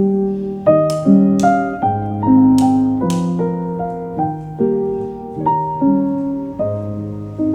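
Background music: a solo piano playing a slow, gentle melody with chords, notes struck about every half second.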